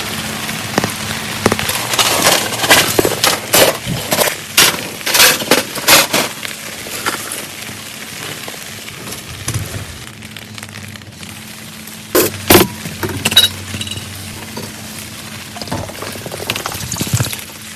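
A run of sharp, irregular clinks and knocks of hard objects, dense in the first half and a few more about two-thirds of the way in, over a steady hiss.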